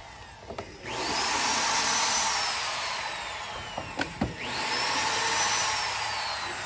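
Corded electric drill backing screws out of a plywood box lid: two runs, each speeding up quickly to a high whine that then slowly sinks in pitch, with a couple of sharp clicks between them.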